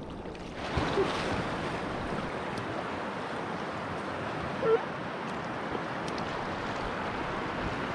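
Whitewater rushing around a packraft as it runs into a river rapid: a steady rush of water that gets louder about half a second in. A brief sharper sound stands out just before the five-second mark.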